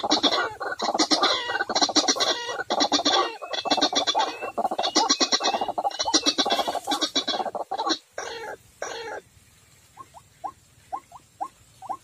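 White-breasted waterhen calling: about nine seconds of loud, harsh, rapidly repeated croaking phrases. After a short pause comes a string of short rising notes, about two a second.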